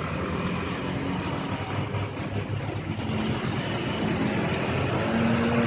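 Road traffic going by, a steady vehicle noise with an engine tone that rises near the end.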